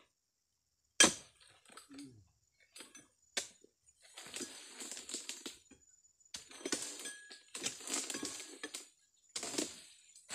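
Long-pole harvesting sickle cutting into an oil palm's crown: a sharp crack about a second in, then several long crunching, scraping strokes as the blade saws through the fibrous frond bases.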